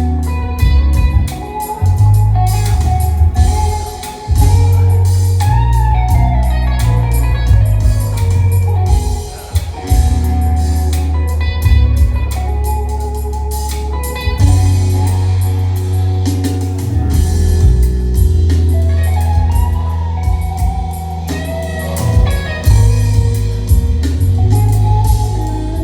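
Live instrumental music played on ROLI keyboard synthesizers: deep sustained bass notes under a lead melody that bends in pitch, over a steady beat.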